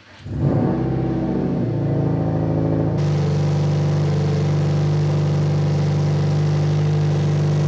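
A 2007 Subaru WRX STI's turbocharged 2.5-litre flat-four starts, its revs flaring up and then settling, and then idles steadily. It is idling so that trapped air can bleed out of the freshly refilled cooling system.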